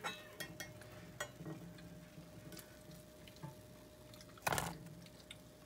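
Rice-flour batter for chitoi pitha sizzling faintly in a cast-iron chitoi mould, with small crackles. About four and a half seconds in, a knife scrapes briefly and loudly against the pan as a cake is prised out.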